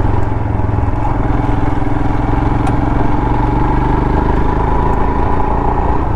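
Royal Enfield Himalayan's single-cylinder engine running at a steady pace while being ridden on a dirt track, its note holding even throughout.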